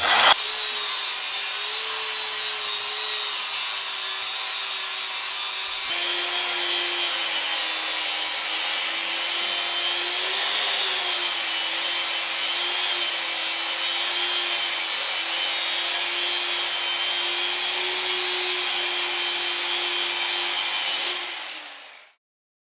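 Power tool cutting through a metal medal, running steadily with a motor hum and a high whine. The pitch drops slightly about six seconds in, and the tool winds down and stops about 21 seconds in.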